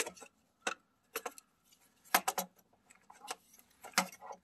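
Calipers clicking and tapping as they are slid and set against the ATV's frame and skid plate: a string of irregular sharp clicks, some in quick pairs and threes.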